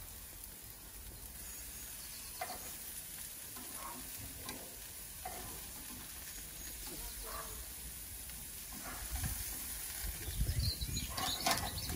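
Sausages and burgers sizzling on the hot grate of a gas barbecue, a steady hiss, with occasional scrapes and clicks of metal tongs turning the meat.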